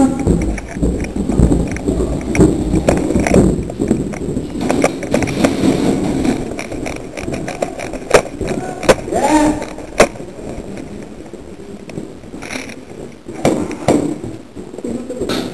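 Close rustling and bumping of a player's gear against the helmet camera, dying down over the first half, with a few isolated sharp cracks of airsoft gunfire in the second half.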